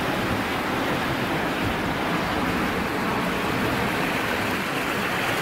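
River water rushing and splashing along the houseboat's pontoon hull as the boat pushes through the current, a steady noise.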